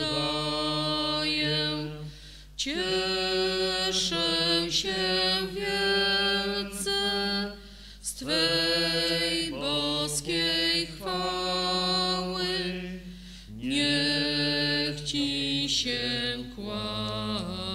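A slow church hymn sung in Polish as the offertory hymn, in long held phrases with short breaks between lines about every five and a half seconds.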